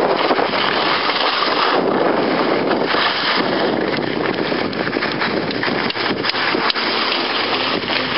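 Skis sliding over packed snow, a steady rushing hiss mixed with wind on the microphone, easing somewhat as the skier slows. Two sharp clicks come about three-quarters of the way in.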